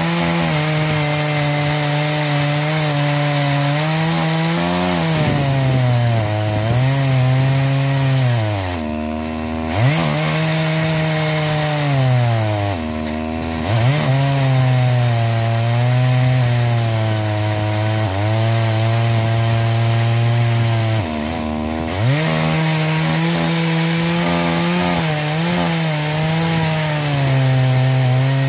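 Sachs Dolmar 120si 68cc two-stroke chainsaw in an Alaskan chainsaw mill, running at high revs under load while ripping a slab lengthwise through a log. The engine note wavers in the cut and three times sags sharply low before climbing back up.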